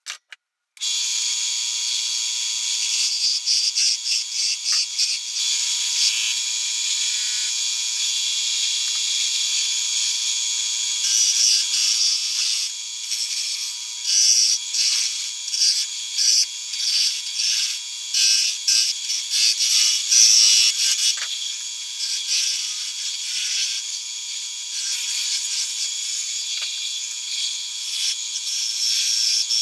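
Harbor Freight Central Machinery 10x18 mini wood lathe running with a steady whine while a hand chisel cuts the spinning wood spindle. Each pass gives a rasping hiss that swells and fades, in repeated strokes.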